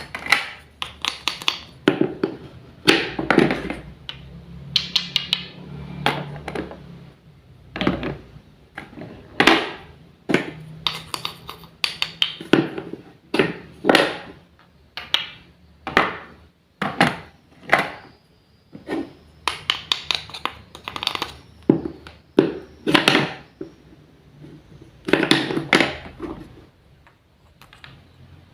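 Miniature kitchen utensils being handled while preparing food: a string of irregular taps, knocks and light scrapes, about one or two a second.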